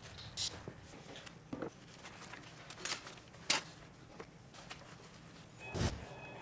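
Scattered handling sounds at a steel workbench: a paper shop towel rustling and being wiped over metal, with a few sharp clicks and taps of things being moved, and a heavier low thump near the end.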